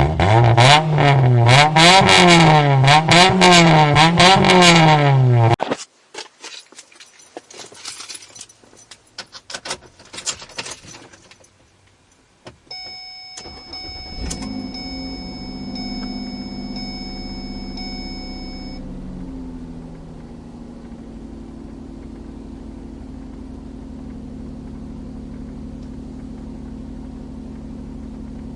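After a loud wavering tone that swings up and down in pitch for about six seconds, keys jangle and click. A steady electronic chime sounds as the ignition is switched on, then a car engine starts about 13 seconds in. It runs at a higher fast idle that settles lower after a few seconds and then idles steadily.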